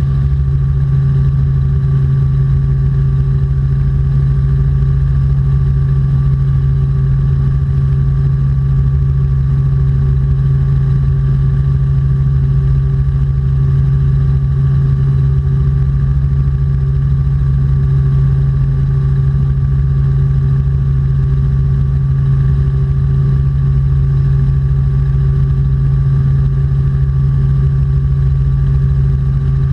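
Robinson R44 Clipper II helicopter in flight: the engine and rotors make a loud, steady drone with a constant low hum, unchanging throughout.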